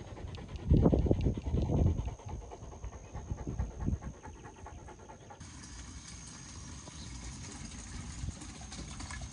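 Large Fila Brasileiro dog panting hard, loudest about a second in, then easing. Her owner puts it down to lack of exercise and conditioning. About five seconds in, it gives way to a quieter, steady sound.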